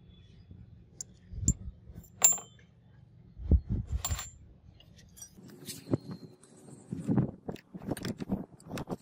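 Small flat metal pieces dropping and clinking on a concrete floor: a few sharp ringing clinks in the first half, then duller knocks and scraping as metal is moved over the concrete.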